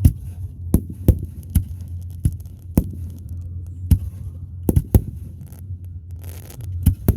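Fireworks bursting overhead: about a dozen sharp bangs in an irregular series, over a steady low hum.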